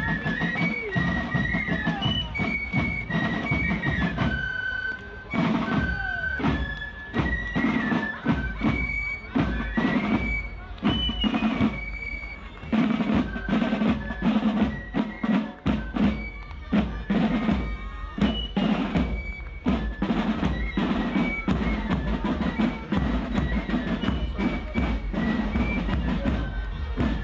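Carnival fife-and-drum band (pifferi e tamburi) playing a march: fifes carry a high melody over steady side-drum strokes.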